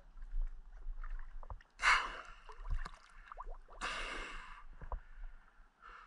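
Water lapping and sloshing around a camera held at the water's surface, with two louder rushing splashes, one about two seconds in and one about four seconds in.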